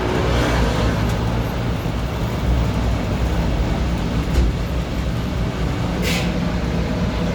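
Steady low mechanical rumble, like a running motor or fan, with a short hiss about six seconds in.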